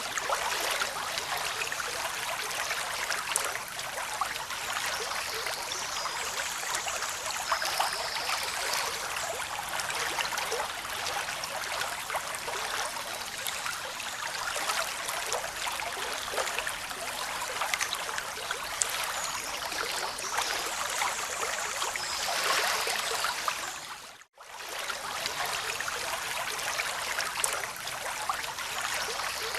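Steady rushing water, a continuous hiss of moving water with small swells in loudness. It cuts out for a split second about 24 seconds in, then resumes.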